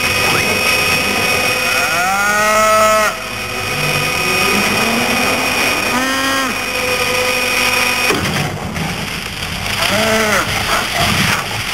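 Brachiosaurus calls from the film soundtrack: three long, moaning honks that rise and fall in pitch, the first and loudest about two seconds in, the others about six and ten seconds in. They sit over a steady background of held tones.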